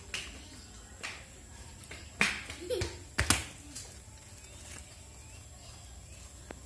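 A few sharp clicks and knocks over a faint low background hum, the loudest about two seconds in and a close pair just after three seconds.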